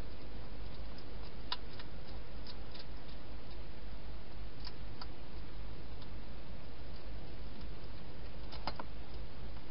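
Wild hedgehog eating from a bowl inside a plastic feeding box: a few scattered sharp clicks and crunches, in small clusters, over a steady hiss.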